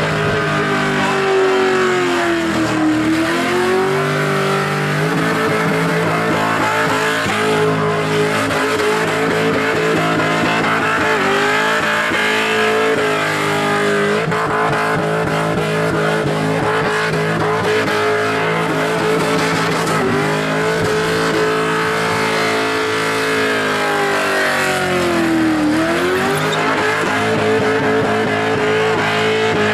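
Holden Commodore V8 engine held at a steady high pitch during a burnout, with tyre noise underneath; the revs dip and climb back about three seconds in and again near the end.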